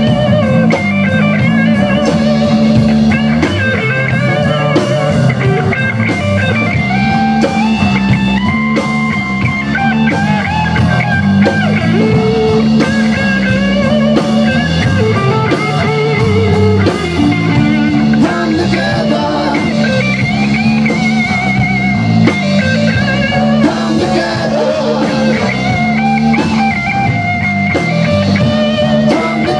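A rock band playing live: electric guitar and electric bass over a drum kit, with a steady drum beat.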